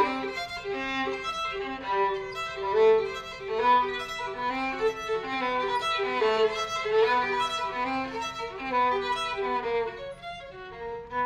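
Violin playing a classical passage, bowed, with the notes changing several times a second.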